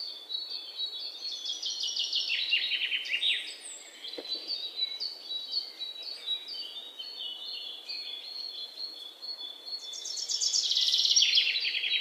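Aviary birds chirping in a dense chorus of rapid, high trills and short falling notes, loudest near the end.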